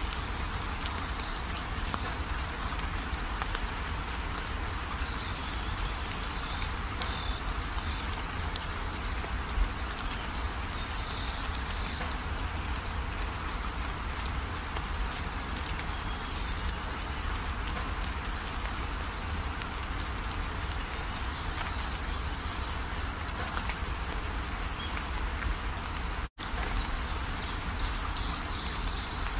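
Steady rain-like hiss with no speech or music, cut off for an instant near the end.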